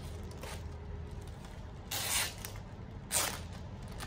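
Clear plastic garment wrapping crinkling as it is handled: two short rustles about a second apart in the second half.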